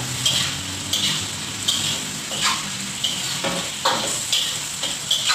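Food frying in oil in a black wok, with a steady sizzle, while a metal spatula stirs it and scrapes the pan in short strokes every half second to second.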